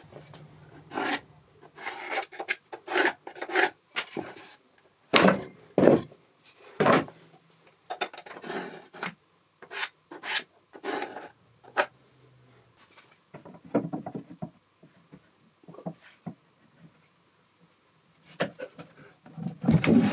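Pencil scratching marking lines inside a wooden box, in a run of short strokes, mixed with wood rubbing and light knocks as the box and its plywood front are handled.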